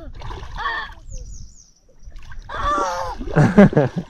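Water splashing, mixed with short vocal exclamations from people at the water's edge.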